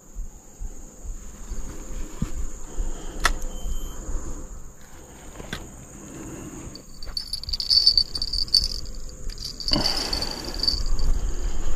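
Insects buzzing steadily, with a second, louder buzz coming and going about seven to eleven seconds in. Soft knocks, clicks and rustling from a spinning rod and reel being handled and set in a rod holder.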